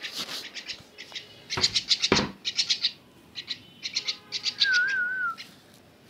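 Myna chick calling in quick runs of short, high chirps. There is a rustling noise about two seconds in and a brief warbling whistle near the end.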